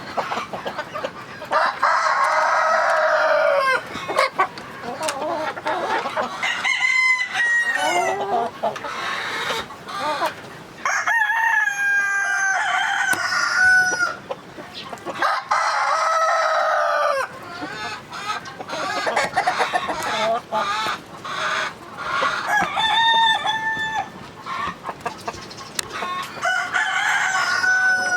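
Roosters crowing about six times, long pitched calls of one to three seconds each, with hens clucking in short notes between them.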